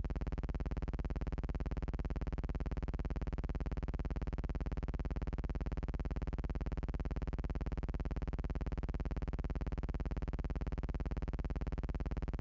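A steady, unchanging electrical buzz with a low hum under it: noise on the soundtrack of silent archival film, with no sound from the scene itself.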